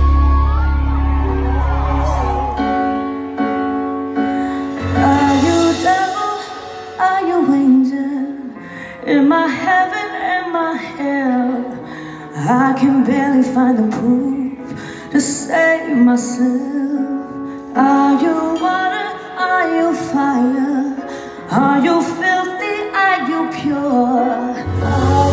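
A female pop singer singing live through a microphone: a slow, sustained vocal line over light accompaniment, in a large hall. It opens with a loud, bass-heavy band passage that stops about two and a half seconds in, and heavy bass comes back near the end.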